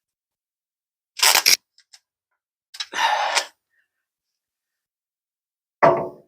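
Three short bursts of harsh mechanical noise with silence between them, the middle one the longest, from work on the van's rear suspension.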